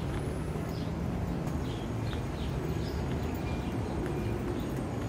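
City street ambience: a steady low rumble of traffic, with a few short high chirps scattered through it.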